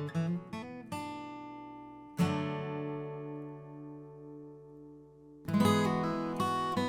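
Acoustic guitar music: a few plucked notes, then a chord strummed about two seconds in and left to ring out, with strumming starting again near the end.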